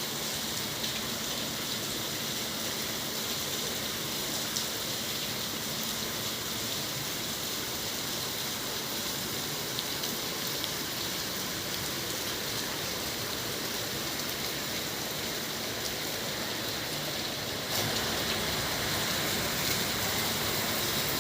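Steady rain falling, an even hiss with scattered drop ticks, growing a little louder near the end.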